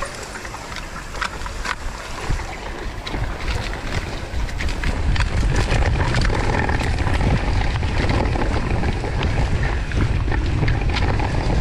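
Wind buffeting the microphone of a mountain bike's handlebar camera during a fast descent, growing louder about five seconds in as speed picks up, over tyres running through muddy dirt. Frequent sharp clicks and knocks from the bike rattling over the rough trail.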